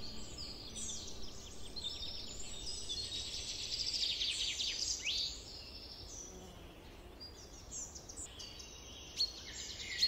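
Several small songbirds chirping and trilling in overlapping quick calls and whistled glides, busiest in the first half and thinning out after about five seconds, over a faint steady background hiss.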